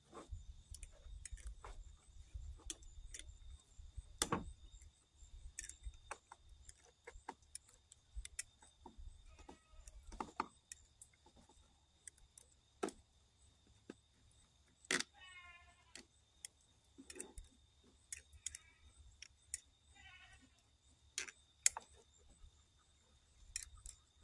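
A knife clicking and tapping against glass canning jars as it is pushed down through packed corn kernels and water to release trapped air bubbles. The clicks are irregular and fairly quiet, with a few sharper knocks.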